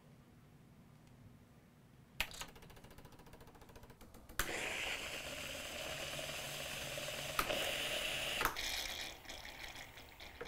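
Gaggia Babila super-automatic espresso machine running its carafe quick-clean cycle. About two seconds in, a click starts the pump's fast even pulsing. Then steam hisses steadily through the carafe circuit for about four seconds and cuts off with a click, leaving fainter pulsing and a last click.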